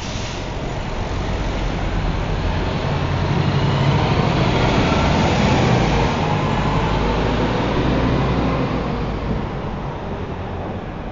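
Train passing on an elevated steel railway structure: a heavy rumble that builds to its loudest about four to six seconds in, then fades.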